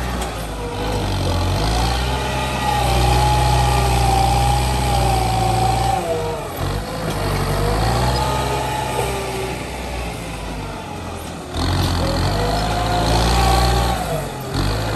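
Kubota tractor's diesel engine working under load as its front blade pushes soil, the engine note rising and falling as the load changes. It eases off about ten seconds in, then surges again near the end.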